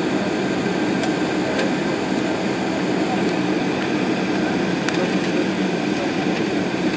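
Steady cabin noise inside a Boeing 747-400 on the ground: an even hum of air conditioning and engines heard through the fuselage, with a few faint clicks.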